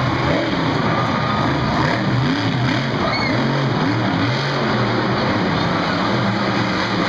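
Monster truck's supercharged V8 engine revving up and down several times as it drives over the dirt, heard over dense arena noise.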